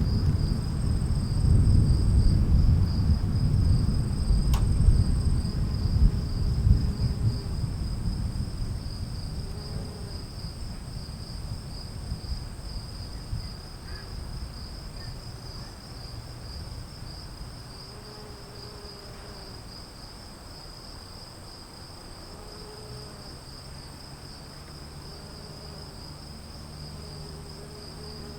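A long roll of thunder rumbling low and dying away over about fifteen seconds. Under it, insects trill steadily in a high, pulsing chorus typical of crickets.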